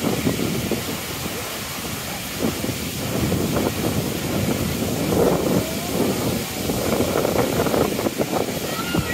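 The Kravica waterfalls on the Trebižat river: a steady rush of water falling over the tufa cascades.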